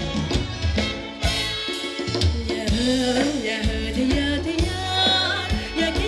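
Live band playing Thai ramwong dance music: a steady drum and bass beat, with a singer carrying the melody.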